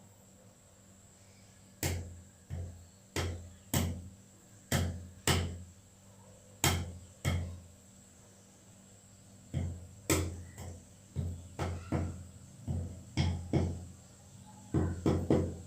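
Black pepper, cloves and ginger being pounded by hand to crush them: a series of sharp knocks, each with a dull thud, about two a second, with a pause in the middle. The knocks come faster near the end.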